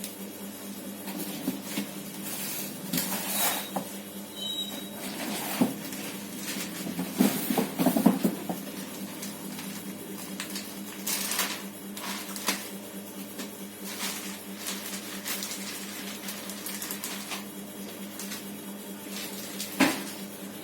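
Scattered clicks, knocks and rustling of a TV set and its packaging and parts being handled, over a steady low hum. The handling is busiest about seven to eight seconds in, and there is a sharp knock near the end.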